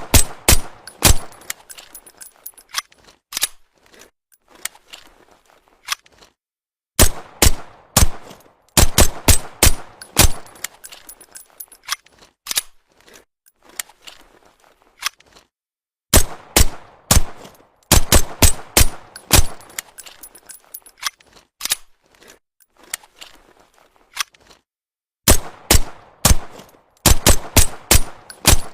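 Suppressed Walther PPK pistol shots, fired in quick strings of several shots with pauses of a few seconds between strings; each shot is a sharp crack with a short metallic ring after it.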